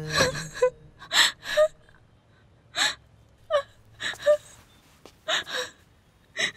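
A young woman crying in short gasping sobs, about a dozen catches of breath, often in pairs, some ending in a brief whimper.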